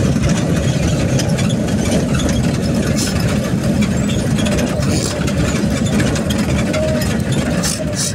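Steady engine and road noise of a vehicle driving along a paved road, with a few brief scratchy bursts about three seconds in, at five seconds and near the end.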